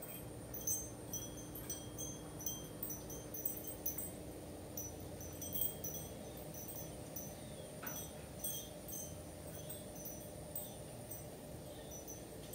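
Wind chime tinkling, with light high ringing notes struck irregularly, several a second.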